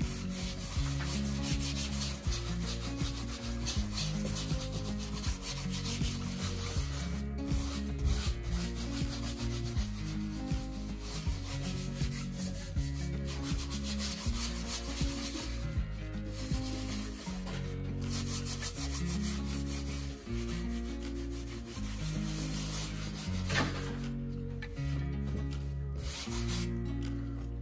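Gloved hands rubbing acrylic toning paint across a stretched canvas, continual strokes with a few brief pauses, over background music.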